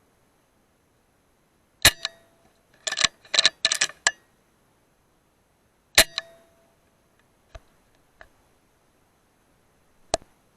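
Two sharp shots from a hunting air gun, about four seconds apart, each with a short metallic ring. Between them comes a quick clatter of short noisy bursts, and lighter clicks follow near the end.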